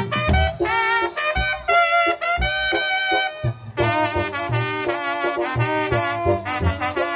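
Saxophone playing a melody with vibrato, with a short pause about halfway through, over a steady low drum beat from a band.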